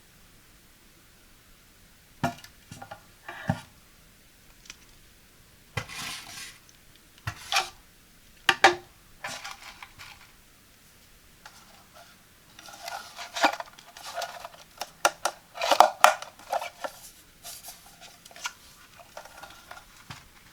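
A toilet brush and its caddy being handled: scattered sharp clacks and knocks of hard parts, with a busier run of clattering past the middle that thins out near the end.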